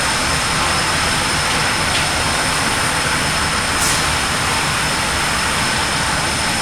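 Metal-fabrication machinery running on a shop floor where plasma cutters are cutting steel parts: a loud, steady rushing noise with a thin high whine, and a brief click about four seconds in.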